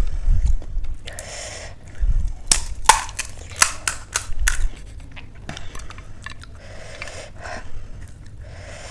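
Crisp, hollow panipuri shell crackling as fingers press a hole in its top: a quick run of sharp cracks in the middle, with softer handling rustles around it.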